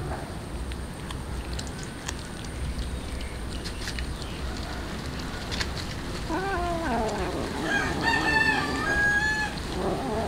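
A rooster crows once, starting about six seconds in and lasting about three seconds, the call dropping first and ending on a long held high note. Before it, faint soft clicks come from the kitten eating raw tuna.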